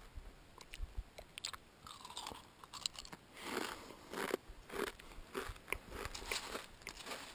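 Dry Raisin Bran flakes being chewed close to the microphone, with no milk: scattered crisp crunches at first, then a steady run of loud crunching from about three seconds in.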